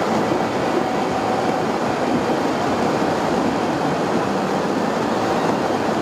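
Steady road and engine noise of a car driving, heard from inside the moving car.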